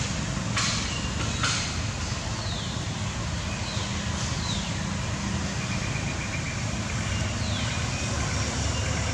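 Outdoor ambience: a steady low rumble, with two sharp clicks about half a second and a second and a half in, and faint short high chirps that fall in pitch.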